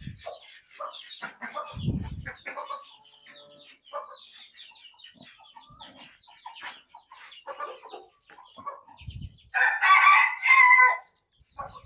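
Chickens clucking with short scattered calls. Near the end a rooster crows loudly in one long call, the loudest sound. Two dull thumps come about 2 s and 9 s in.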